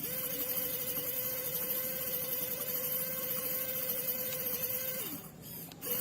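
Small electric motor of a homemade model tree-cutting machine whirring with a steady hum, then switched off about five seconds in, its pitch dropping as it winds down, and starting up again near the end.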